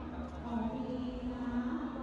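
A singing voice holding long notes that step in pitch, over the murmur of a crowd.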